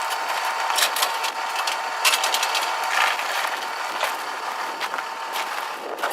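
Steady mechanical running noise with a faint steady whine and several sharp clicks.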